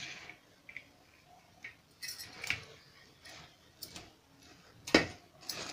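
A metal spoon knocking and scraping against a steel pot while stirring puffed rice coated in thick jaggery syrup, in irregular clinks, the loudest about five seconds in.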